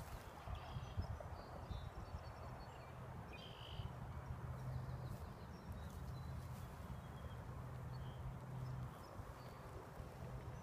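Faint outdoor park ambience: a low steady hum with scattered faint bird chirps.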